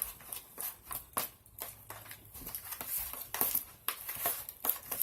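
Spoon scraping and clicking against a bowl in quick, irregular strokes, several a second, while mashing hard-boiled egg yolks together with mustard and sweet relish for deviled-egg filling.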